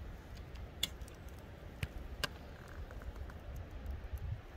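Knife cutting a cooked steak on a plate: a few sharp clicks of the blade against the plate, spaced irregularly, over a faint low rumble.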